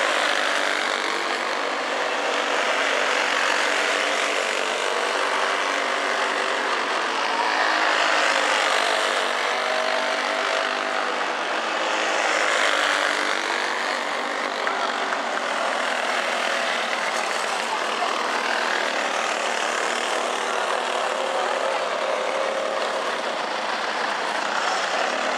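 A pack of dirt-track racing go-karts with single-cylinder four-stroke clone engines running hard at high revs, many engine notes overlapping and sliding in pitch as the karts go round. The sound swells about 8 and 12 seconds in as the pack passes closer.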